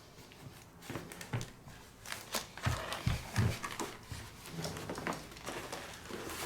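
Irregular rustling and clicking of a shoe box and its packaging being handled, with a few dull thumps in the middle.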